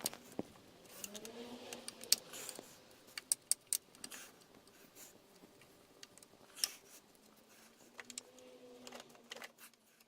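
Light, scattered clicks and knocks of objects being handled in a workshop, with a faint drawn-out tone twice.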